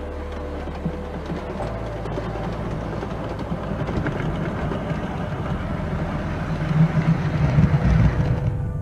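Model railway train running on the layout track, a rumble and clatter of wheels that grows louder as it approaches, loudest near the end.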